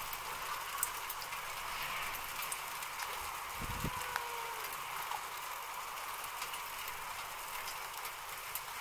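Steady outdoor background hiss with scattered faint ticks, and a brief low rumble with a faint gliding tone about four seconds in.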